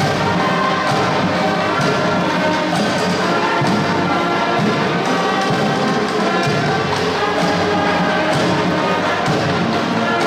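School pep band playing a tune: trumpets, saxophones and flutes over a sousaphone bass line, with snare and bass drums keeping a steady beat.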